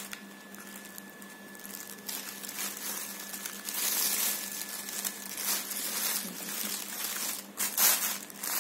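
Rustling and crinkling of a soft cotton shirt and its paper tag as the shirt is unfolded by hand, faint at first, then louder and more irregular, loudest near the end.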